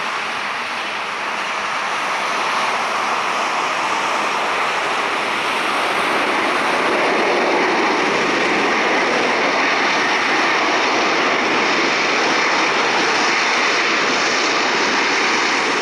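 Jet airliner (Boeing 737) rolling out on the runway just after touchdown: a steady rushing jet-engine noise that swells about two seconds in and then holds.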